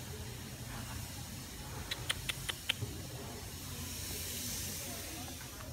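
Steady background hiss over a low hum, with a quick run of about five sharp, high ticks about two seconds in.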